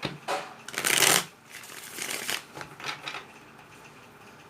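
A deck of tarot cards being shuffled by hand: several short papery bursts, the loudest about a second in.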